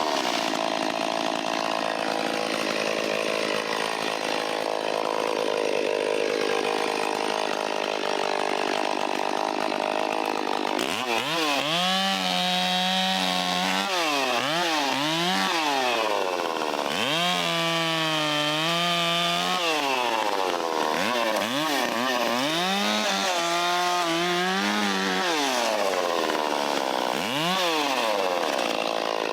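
Vintage Stihl 034 two-stroke chainsaw cutting branches. For the first eleven seconds or so it runs steadily under load in the wood, then it is revved up and down repeatedly, held at full throttle several times and dropping back between.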